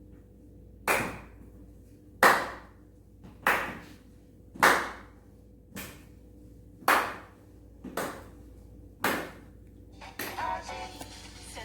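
Slow hand claps, eight in a row evenly spaced about a second apart, each with a short echo. The slow pace is the cue in the game to move slowly.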